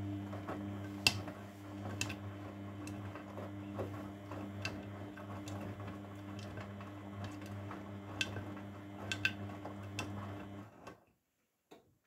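Grundig front-loading washing machine in its wash phase: the drum motor hums steadily as the laundry tumbles in water, with a few sharp clicks along the way. The drum stops about eleven seconds in.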